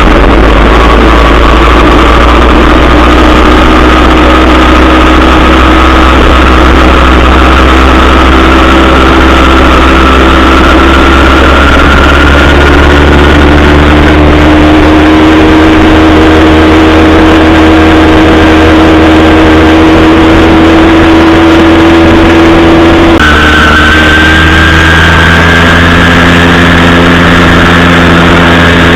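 80cc Zeda Dio two-stroke engine on a motorized bicycle, running loud under way at a steady throttle with its note creeping slowly upward, then stepping up suddenly about 23 seconds in. The engine is still in its break-in period.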